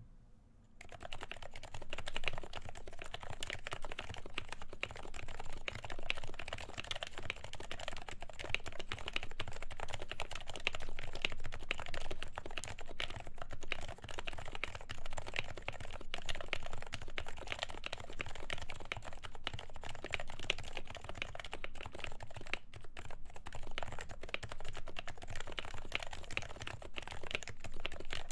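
Continuous fast typing on a Happy Hacking Keyboard Professional with 45 g Topre electrostatic capacitive switches, lubed with Tribosys 3204 and dampened with KBDfans Silence-X rings: a dense, unbroken stream of keystrokes starting about a second in.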